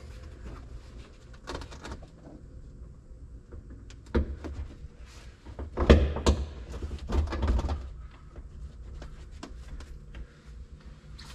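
Headliner panel knocking and scraping against the pickup cab's roof as it is pushed up and fitted into place, with irregular rustling and several dull thumps, the loudest about six seconds in.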